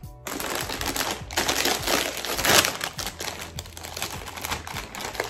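A Doritos Flaming Hot chip bag crinkling and crackling as it is handled and pulled open, loudest about halfway through.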